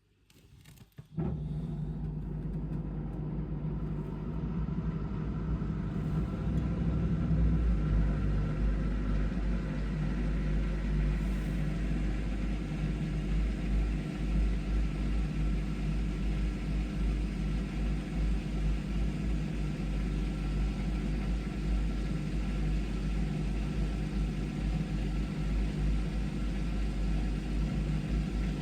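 Indesit washing machine's drain pump switching on about a second in and running with a steady low hum and a wash of water noise as the drum is pumped out during the rinse.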